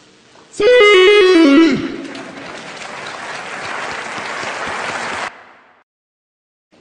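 A short, loud, wavering pitched cry stepping downward for about a second, followed by applause and crowd noise that cuts off abruptly about five seconds in. It is a sound effect standing in for the 'Siuuu' shout.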